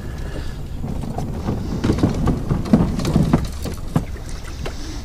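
Knocks and bumps on a small plastic fishing boat's hull and deck as a man climbs over its rod table, several in quick succession in the middle, over a steady low rumble.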